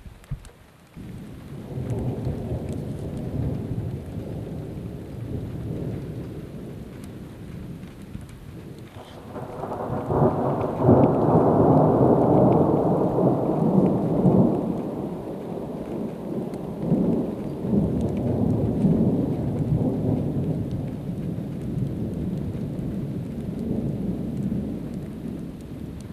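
Thunder rumbling in long low rolls, swelling loudest about ten seconds in and fading back, with rain.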